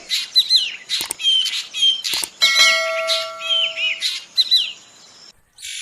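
Black drongo singing: a busy run of harsh, scratchy notes and clear whistles that slide down in pitch, with a few sharp clicks. About halfway through it holds a steady ringing note for roughly a second and a half.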